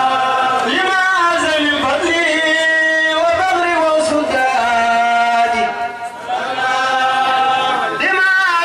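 A male voice chanting Islamic devotional verses in long, drawn-out wavering notes, with a brief break about six seconds in.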